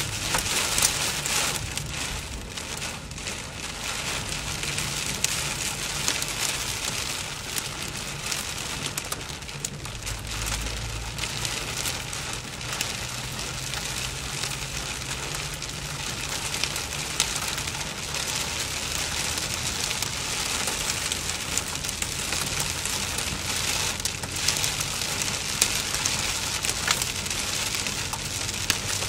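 Heavy rain hitting a car's roof and windshield as a dense patter of drops, heard from inside the cabin. The car's engine and tyres drone steadily underneath.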